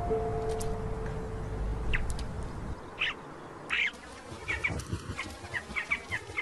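Choughs calling: a few short, high calls, then a quick run of short chirping calls through the second half, over a low held tone that fades out about halfway through.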